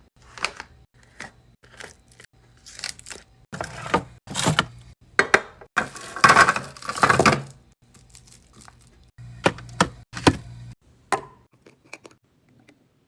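Drinks and snacks being handled and set into a mini fridge: a run of knocks, taps and clinks with crinkling packaging, busiest about six to seven seconds in, then only a few faint taps after about eleven seconds.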